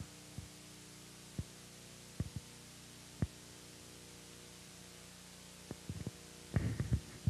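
Steady low electrical hum, with a handful of faint, separate clicks scattered through it and a short louder noise about a second before the end.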